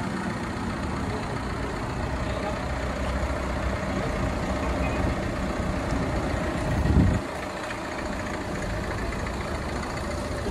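Tata Nexon diesel engine idling with a steady low rumble. A brief low thump about seven seconds in.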